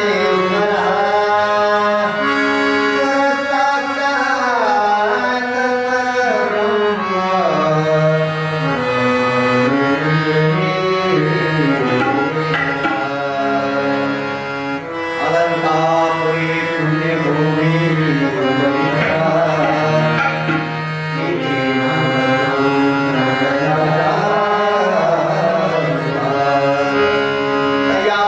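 Marathi devotional bhajan: a harmonium carries a sustained, sliding melody with a man singing, over tabla accompaniment.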